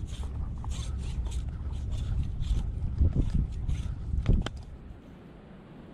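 Handling noise close to the microphone: quick rustling and scraping of a sleeve and rod, over a low wind rumble. Two louder knocks come about three and four seconds in, then it drops to a faint hiss.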